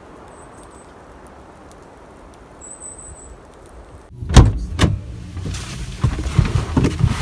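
A faint steady outdoor hiss, then about four seconds in two loud thumps followed by a run of knocks and rustling as a person gets into a car and settles into the driver's seat.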